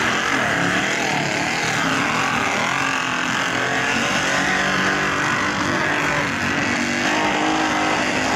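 Engine of a swamp buggy running hard as it ploughs through a muddy pond, its pitch wavering up and down, with the rush of churned mud and water.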